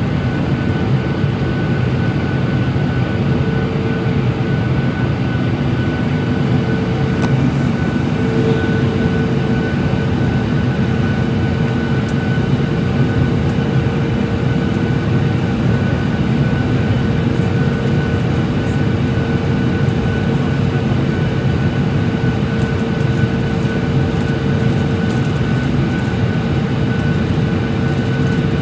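Steady cabin noise of a Boeing 737-800 on approach, heard from a window seat beside its CFM56-7B engine: a low rush of airflow and engine drone with two steady whining tones, one mid and one high.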